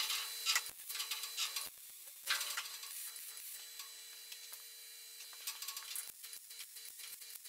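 MIG welder tack-welding thin car-body sheet steel: rapid crackling that stops at the start, a few seconds of rustling and handling, then crackling again from about six seconds in. A faint steady hum runs underneath.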